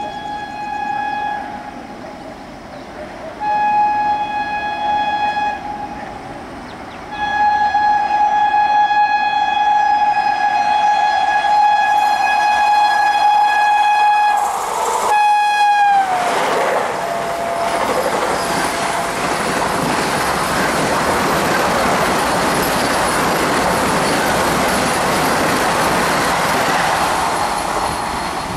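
An express train's horn sounds in several blasts as it approaches, one of them held for about seven seconds. About sixteen seconds in, the horn's pitch drops as the train passes close by, and the loud rush and clatter of a fast passenger train running through follows.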